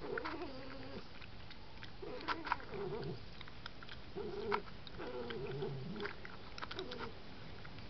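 A vixen (red fox) making a series of short, wavering, low complaining calls about once a second, unhappy at a badger feeding beside her. Sharp clicks from feeding at the bowls come between the calls, and the loudest clicks stand out about two and four and a half seconds in.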